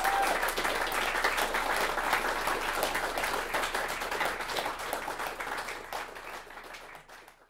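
Audience applauding at the end of a live jazz number, dense clapping that thins out and dies away near the end.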